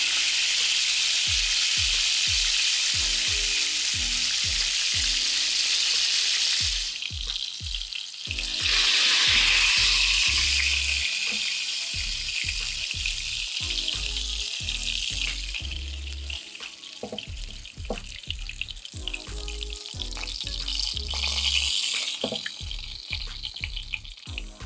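Small floured dace frying in hot oil in a pan: a steady sizzle that drops briefly about seven seconds in, comes back, then grows quieter in the second half. Light clicks of a fork against the pan come through as the fish are turned and lifted out.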